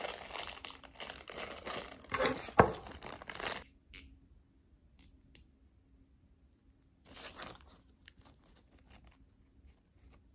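Small clear plastic wrapper being torn open and crinkled by hand, with a sharp snap about two and a half seconds in. It then goes mostly quiet, with a brief rustle of plastic about seven seconds in.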